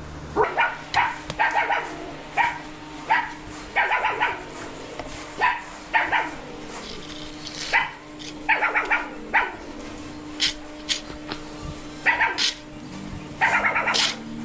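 A dog barking over and over, with single barks and quick runs of barks, the fastest run near the end. A faint steady hum sits underneath.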